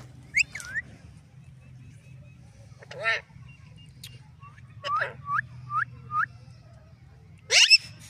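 White Indian ringneck parakeet calling in separate bursts: a short call just after the start, a harsh squawk about three seconds in, a run of four quick chirps around five to six seconds, and a loud screech near the end, over a faint steady low hum.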